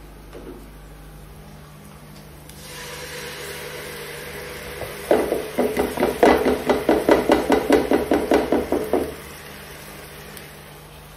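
Food sizzling in a frying pot, and from about five seconds in a spatula scraping and stirring the pot in quick even strokes, about four a second, for some four seconds.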